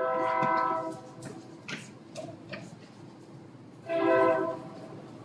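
Chalk on a blackboard while writing: it squeaks in steady, held tones near the start and again about four seconds in, with short chalk taps and scratches in between.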